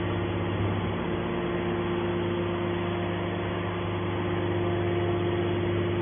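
Hydraulic scrap metal baler's power pack running, a steady hum with a constant higher tone, while its hydraulic cylinder swings the lid open.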